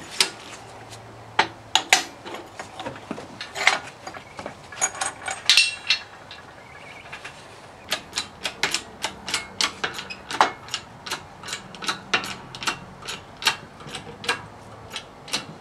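Sharp metallic clicks and clinks as a steel wheel hub and its new wheel studs are worked on a press bed. The clicks are scattered at first, then about eight seconds in they become a fast, fairly even run of about four a second.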